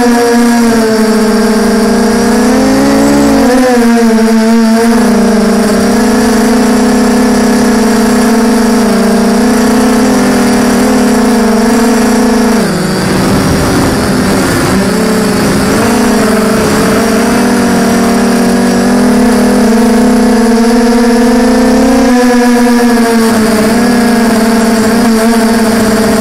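FPV quadcopter's electric motors and propellers whining steadily, heard from on board the drone. The pitch shifts with the throttle: it bends about three seconds in, then sags and wavers for a few seconds around the middle before climbing back.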